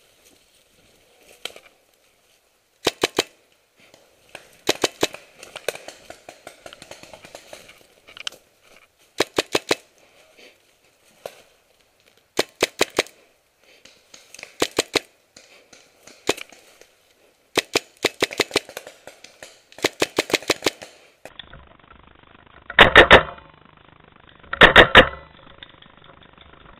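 Paintball markers firing in quick strings of several shots, a string every two to three seconds. Near the end the shots sound duller over a steady background hiss, and the last two strings are the loudest.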